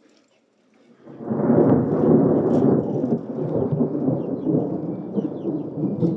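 A long roll of thunder breaks in suddenly about a second in and keeps rumbling loudly, rising and falling unevenly.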